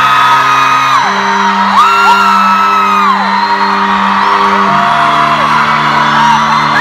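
Amplified live concert music heard from the crowd: held chords that change twice, with fans screaming and whooping over it.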